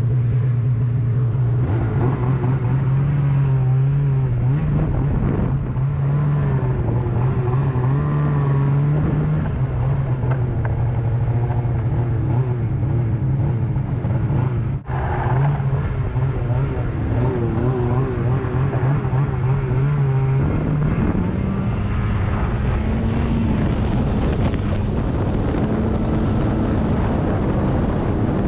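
Snowmobile engine running steadily under way. It dips briefly about 15 seconds in, then its pitch steps up about 20 seconds in as it speeds up.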